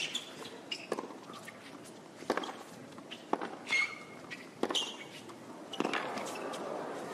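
Tennis rally on a hard court: sharp pops of racket strings hitting the ball, alternating with ball bounces, about one every second or so.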